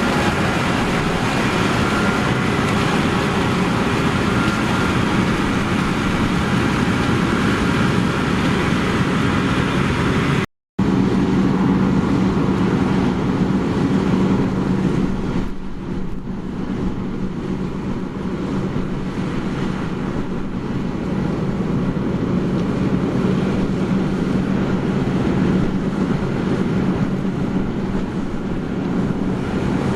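Heavy harvest machinery engines running steadily under load. The sound cuts out briefly about a third of the way in, then comes back with a steadier low hum.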